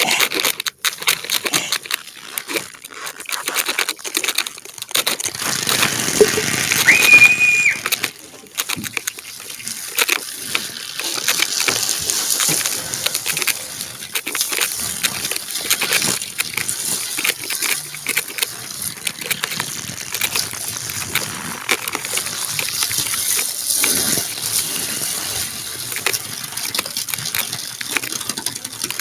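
Foley sound effects: a dense run of crackles, crunches and rustles, louder for a few seconds near the start, with a short high whistle-like tone about seven seconds in.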